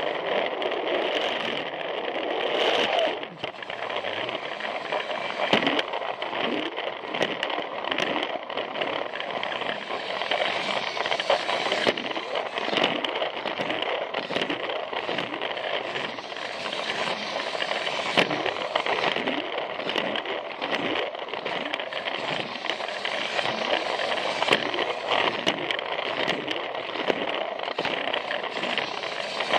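Plarail battery-powered toy train running on plastic track: a steady whine from its small gear motor, with a regular clicking as the wheels cross the track joints.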